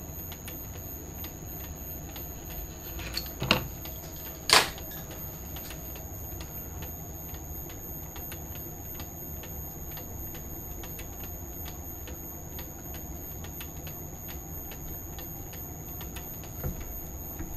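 Two sharp metal clicks about a second apart, a few seconds in, as hand tools touch the lathe's three-jaw chuck and workpiece, over a steady low hum and faint irregular ticking.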